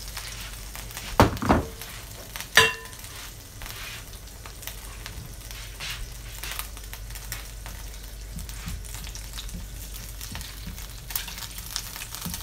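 A pat of butter sizzling and crackling steadily as it melts in a hot nonstick frying pan over browned shrimp pan juices. In the first three seconds there are a few sharp knocks, one of them a short metallic ring.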